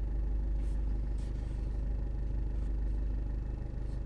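Land Rover Freelander 2 engine idling steadily at about 760 rpm, heard from inside the cabin as a low, even hum.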